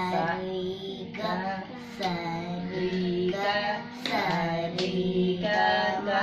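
Two young girls singing Carnatic swara exercises together, held notes stepping up and down the scale on the sol-fa syllables sa-ri-ga-ma. Hand claps or pats on the lap keep the tala beat.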